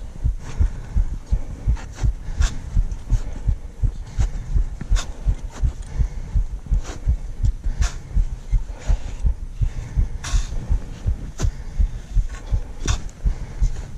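A climber's footsteps going steadily uphill, heard as a rhythm of low thumps about two a second, with a sharper click every second or so.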